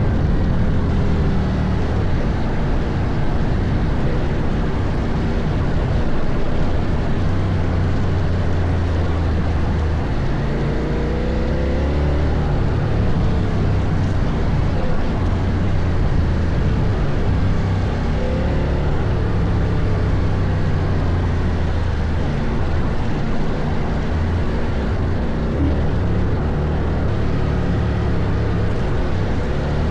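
CFMOTO Ibex 800T motorcycle's parallel-twin engine running continuously, with revs rising and falling as the bike is ridden. A steady rushing noise runs underneath.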